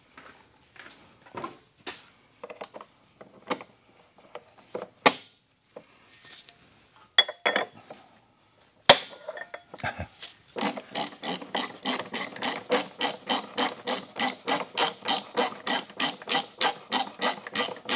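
Metal tool clinks and knocks under the car, then a sharp crack about nine seconds in as the overtight fill plug on a ZF 6HP26 automatic transmission breaks free. A socket ratchet follows, clicking fast and evenly at about five clicks a second as the plug is backed out with a hex-bit socket.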